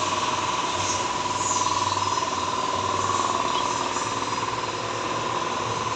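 Hyundai Starex van engine running steadily, with a high-pitched whine held throughout and a fast fine rattle over it.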